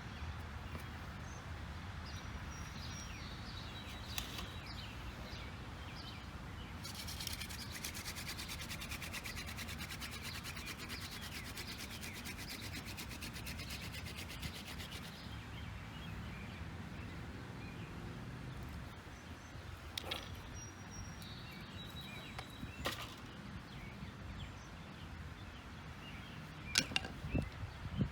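A tall ironweed spindle spun back and forth between the palms on a white pine fireboard: about eight seconds of rapid, even rubbing as the friction drills down toward an ember. A few sharp knocks and taps follow later on.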